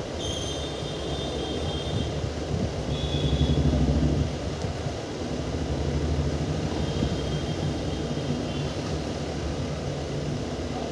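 Steady low rumble of a moving train, swelling briefly about three to four seconds in, with a few short high-pitched tones over it.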